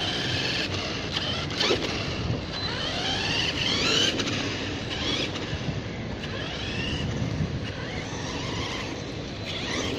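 Turnigy XK-4074 2000KV brushless motor of a Redcat Terremoto V2 RC monster truck whining as it drives, the pitch rising and falling several times as the throttle is worked.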